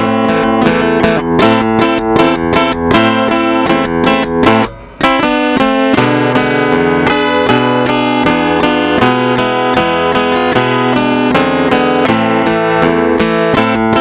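Guitar played by a solenoid-driven robotic mechanism: a plucked melody over chordal accompaniment, with a short break about five seconds in.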